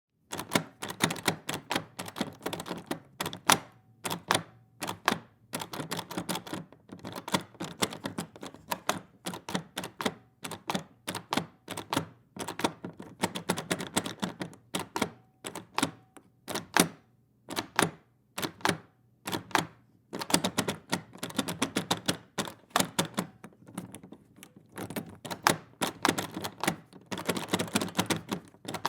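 Metal door handle being worked: a rapid run of clicks and rattles from the latch mechanism as the handle is turned, shaken and locked, in bursts with short pauses between.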